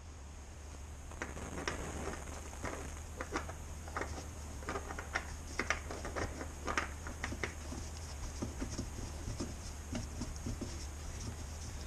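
Irregular light clicking and scraping as a new chrome oil filter is screwed by hand onto a Honda Varadero 1000's engine, busiest in the first two-thirds and lighter near the end, over a steady low hum.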